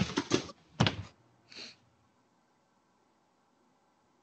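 A person falling into a leafy bush: a brief crash and rustle of leaves and branches with a sharp thud about a second in, then near silence.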